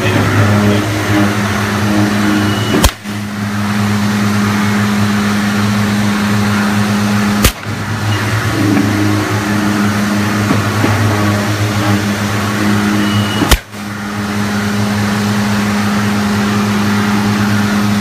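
A CNC woodworking tenoning machine running with a steady motor hum and mechanical noise. Three sharp clicks come about 3, 7.5 and 13.5 seconds in, each followed by a brief dip in the sound.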